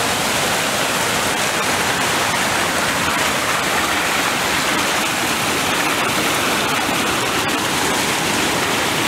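A flood-swollen river rushing fast over its bed, with a small waterfall just upstream: a steady, loud, even rush of water with no breaks.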